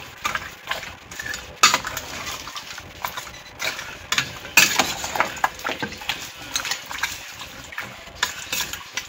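Slotted metal spoon stirring a thick meat stew in a large metal pot, scraping and clinking irregularly against the pot's side, with two sharper knocks about a second and a half and four and a half seconds in.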